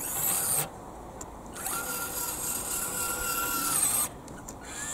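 A small N20 gear motor driving a 3D-printer lead screw in the DIY bucket actuator of an RC-converted Bruder CAT excavator, whining as it moves the bucket. It runs briefly at the start, then again for about two and a half seconds with a steady high whine, stopping abruptly.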